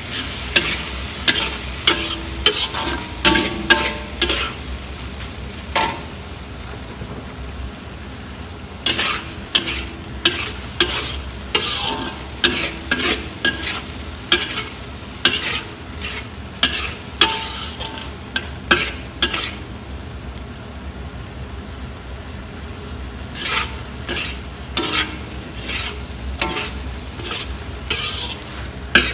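Metal spatula scraping and striking the wok in repeated strokes while pickled mustard greens with sliced meat and chili are stir-fried, over a steady sizzle. The strokes pause briefly twice.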